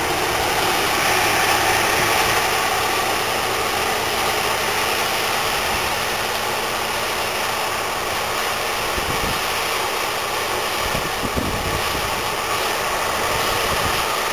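CLAAS combine harvester running steadily while harvesting sunflowers: an even machine drone of engine and threshing gear, with a couple of brief low thumps in the second half.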